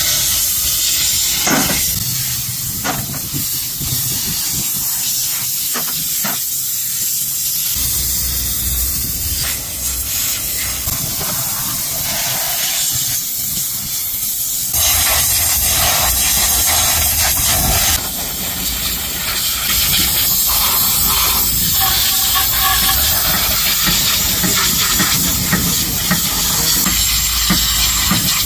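Compressed-air spray gun with a fluid canister hissing steadily as it blasts a cleaning mist over a bulldozer final drive housing, bearings and gears, the hiss stepping in level a few times.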